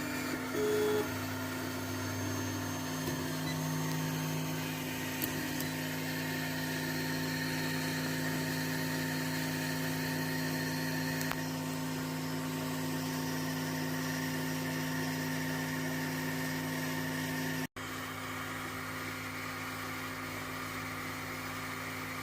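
3D printer running a print: its stepper motors and fans give a steady whine and hum, with a few short changes in pitch in the first few seconds as the print head moves.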